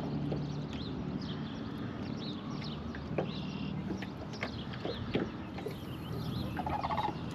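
Several birds calling and singing, many short chirps rising and falling in pitch, over a low steady hum.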